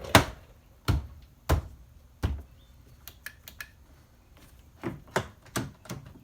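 Plastic door trim panel being pushed onto a Jeep Grand Cherokee's door, its push-in retaining clips popping into place with a series of sharp knocks. Four strong knocks come in the first couple of seconds, then a few light clicks and another cluster of knocks near the end.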